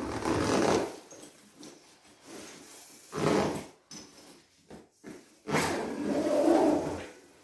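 Handling noise from a thin padded soft bass bag, its fabric rubbing and sliding against the instrument's body as the bass is bagged up, in three bursts with the last and longest about two-thirds of the way through.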